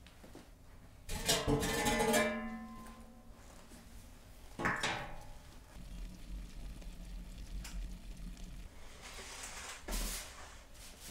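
A metal clang that rings out and dies away over about a second as the iron door of a wood-fired brick oven is handled and set aside. A sharper knock comes a few seconds later, and near the end there is a short scrape and a knock as the foil-covered tray is moved on the oven hearth.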